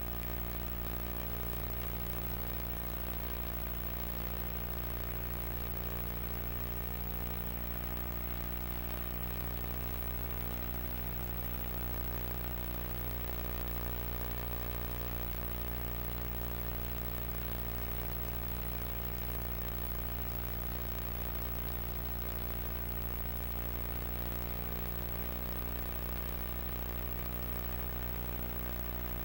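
Steady electrical hum with a buzz of overtones and a faint hiss, unchanging throughout: noise on the soundtrack of a recording with no spoken audio.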